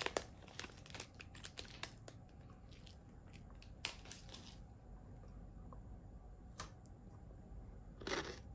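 Faint crinkling and rustling of snack packaging being handled, with a cluster of small crackles and clicks in the first two seconds, then only a few scattered clicks over quiet room tone.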